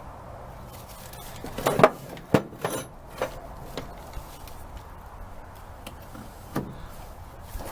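Metal parts and hand tools knocking and clinking as they are handled: a quick run of sharp knocks about two seconds in, and one more knock near the end.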